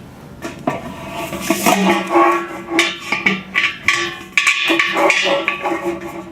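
Metal hardware clinking and knocking in irregular clusters: bolts, nuts and washers being handled and fitted to fasten a mounting bracket to a dish antenna.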